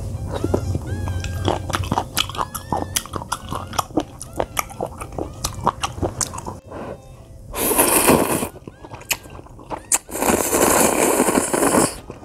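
Chopsticks and a wooden spoon clicking and knocking against a pan of ramen as noodles are stirred and lifted. Then come two loud slurps of ramen noodles, a short one about eight seconds in and a longer one near the end.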